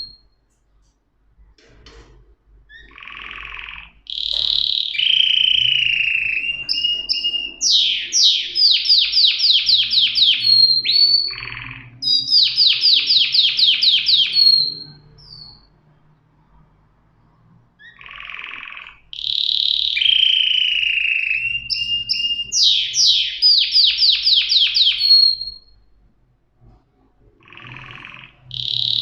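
Domestic canary singing: long phrases of rapid trills and whistled notes, in two bouts separated by short pauses.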